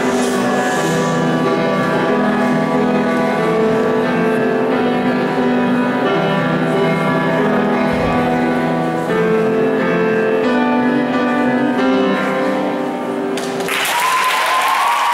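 Upright piano playing a piece in held chords, which ends about thirteen and a half seconds in; applause breaks out right after.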